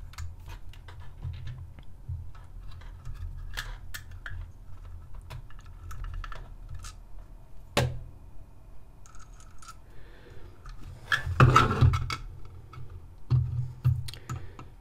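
Hand screwdriver driving small screws into a 3D-printed plastic hopper: scattered light clicks and scrapes of the bit and screw, a sharper click about halfway through, and louder clattering of the plastic part being handled near the end.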